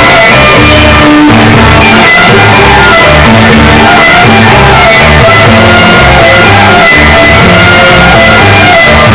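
Loud Greek folk dance music played over loudspeakers, with plucked strings carrying the melody over a steady, repeating bass beat.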